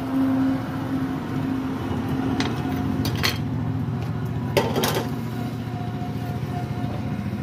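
A few sharp knocks and clinks of a kitchen knife against the basin and wooden chopping board, about two and a half, three and four and a half seconds in, the last a quick double knock. A steady low motor drone runs underneath.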